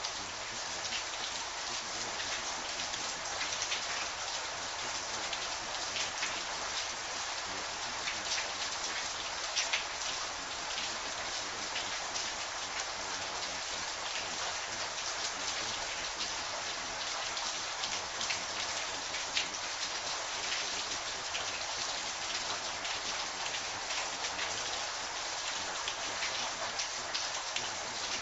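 Steady rain falling: an even hiss with many small, sharp drop hits scattered through it.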